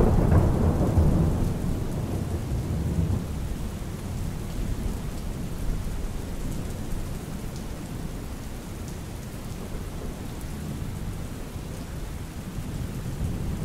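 Rolling thunder over steady rain. The rumble is loudest at the start and fades over the first few seconds, leaving the rain.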